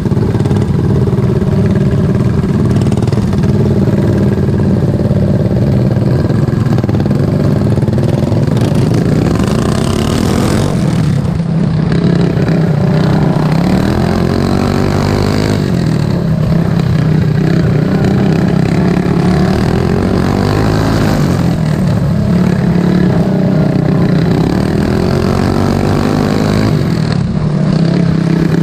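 Racing lawn mower engine running hard, its pitch dipping and climbing again every few seconds as the throttle comes off and goes back on.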